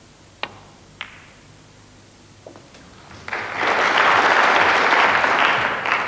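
Snooker cue tip striking the cue ball, a second sharp click about half a second later as the cue ball hits an object ball, and a faint knock about two and a half seconds in. Then audience applause swells, greeting the pot, and fades near the end.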